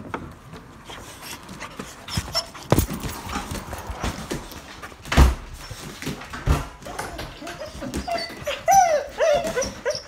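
Dog whining excitedly in a quick run of short, rising-and-falling whimpers, starting about three quarters of the way through. This is a greeting from a dog that has been waiting at home. Before it, a door-latch click at the start and a few heavy thumps, the loudest about halfway through.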